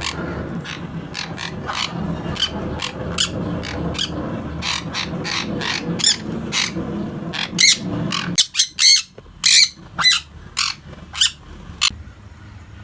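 Sun conure giving repeated short, sharp chirps and squawks, with a run of louder calls about two-thirds of the way through. A steady low background hum cuts off about eight seconds in.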